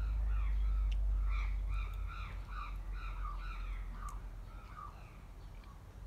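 A bird calling in a quick series of short arched notes, about three a second, fading out around five seconds in, over a low rumble that is loudest in the first two seconds.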